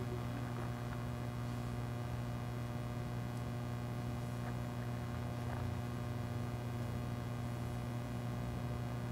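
Steady electrical mains hum with a low buzz and its overtones, unchanging throughout, with a few faint ticks.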